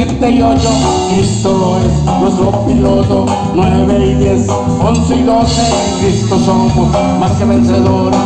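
A live band playing an upbeat Latin dance groove, with button accordion, drum kit, bass guitar and congas.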